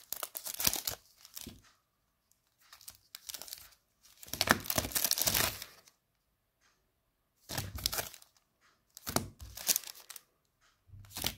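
Foil trading-card booster packs crinkling and rustling as they are handled, in several separate bursts with short quiet gaps, the longest about four to six seconds in.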